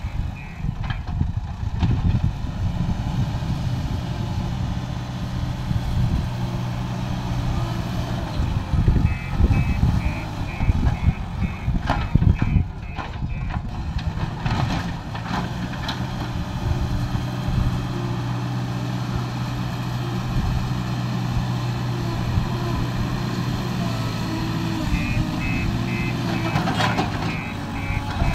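JCB 3DX backhoe loader's diesel engine running steadily under load while it levels soil. Its reversing alarm beeps in two stretches, one about a third of the way in and one near the end, and a few knocks sound along the way.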